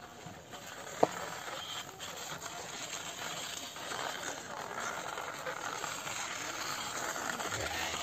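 Small plastic wired-remote toy car running on a concrete surface, a steady noisy sound from its little electric motor and wheels, with one sharp click about a second in.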